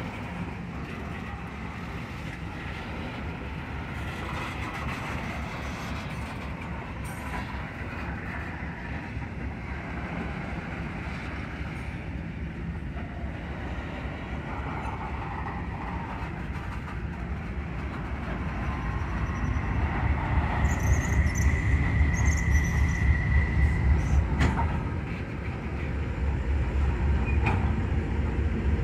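Loaded freight tank wagons rolling slowly past in a rail yard, their steel wheels rumbling on the track. A brief high wheel squeal comes about two-thirds of the way through, then a single clank. The rumble grows louder toward the end.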